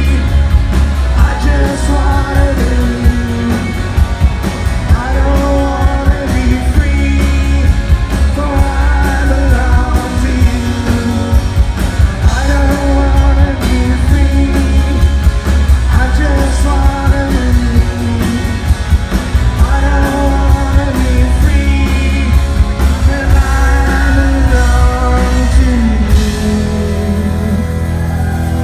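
Live rock band playing: electric guitars, electric bass, drums and a lead vocal, recorded from the crowd with very heavy bass. About two seconds before the end the drums drop out and a chord rings on.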